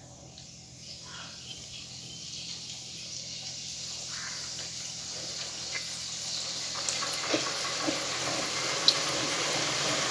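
Filled pastries deep-frying in hot oil: a sizzle that starts faint and grows steadily louder over the first few seconds, with a few sharp pops near the end.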